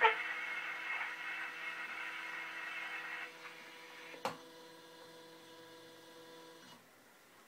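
Surface noise of an Edison Gold Moulded wax cylinder playing on after the speech: a steady hiss with a faint hum that fades over the first few seconds, a single click about four seconds in, then the sound stops shortly before seven seconds.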